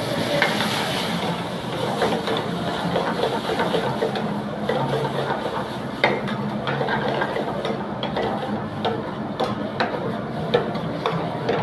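Chicken pieces sizzling in hot oil in a steel frying pan while a metal ladle stirs them, knocking and scraping against the pan in sharp clicks, one louder knock about halfway through.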